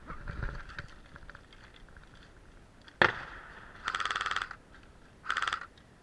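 Airsoft electric gun firing two short full-auto bursts of rapid, evenly spaced shots near the end, after a single sharp crack about three seconds in and some rustling of movement at the start.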